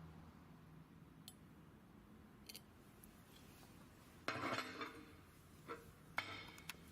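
Metal weld gauge handled against metal: a few light clicks, then a ringing metallic clink about four seconds in and two shorter clinks near the end.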